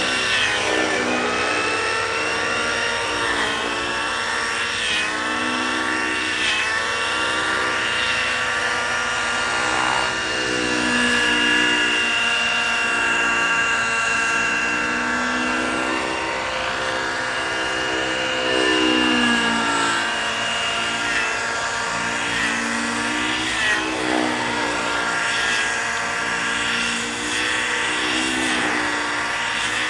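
Freya 90 nitro model helicopter flying aerobatics: its glow engine and rotor blades run continuously, the pitch rising and falling over and over as it manoeuvres.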